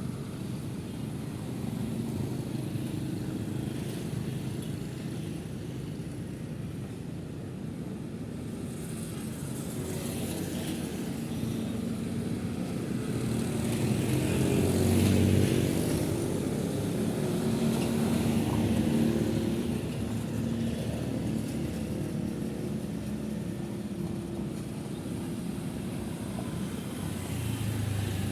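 City street traffic: a steady flow of cars and motorcycles passing, with one louder vehicle going by about halfway through.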